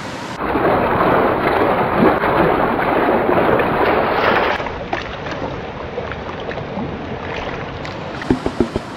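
Water sloshing and splashing as a plastic gold pan full of gravel is dipped and shaken in a brook, loud for about four seconds, then the steadier rush of the stream. A few short knocks come near the end.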